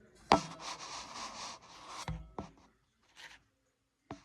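Handling noise: rubbing and scraping close to the microphone, opening with a sharp knock, then a dull thump, a couple of clicks and a short rustle.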